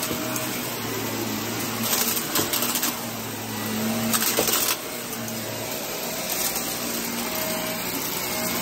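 A small blue upright vacuum cleaner running steadily while it is pushed back and forth over carpet, its motor pitch shifting a little with the strokes. Several short bursts of louder, sharper hiss come through, around two and four seconds in and again near the end.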